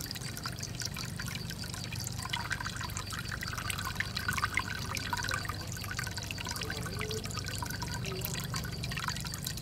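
Water trickling and dripping steadily as a small creek runs into a muddy pool, many small splashes and drips, with a steady low hum underneath.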